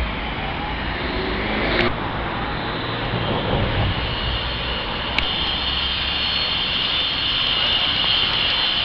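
Steady outdoor city street noise, a low rumble under a hiss, with two sharp clicks about two and five seconds in.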